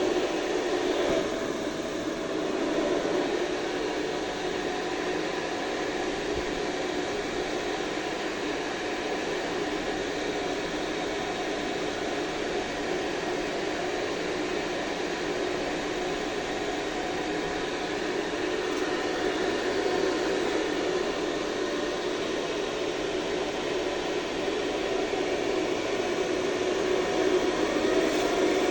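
HF-150 ventilation fan running steadily: a rush of moving air with a steady hum.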